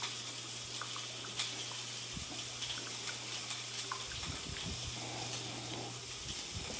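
Pork chops sizzling steadily on a grill plate, with small scrapes and taps of a rubber spatula stirring a thick mayonnaise-based sauce in a plastic bowl.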